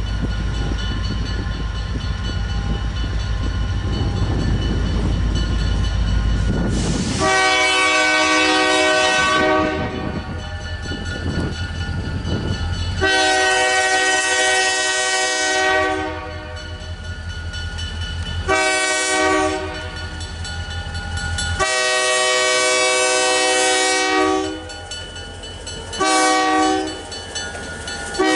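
EMD GP30 diesel locomotive approaching with a low engine rumble, then sounding its K5LA air horn about seven seconds in. The horn gives the grade-crossing pattern of two long blasts, a short one and a long one, then adds another short blast near the end.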